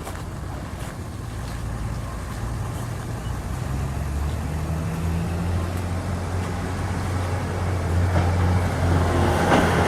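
A steady low mechanical hum, like a running engine or motor, growing gradually louder.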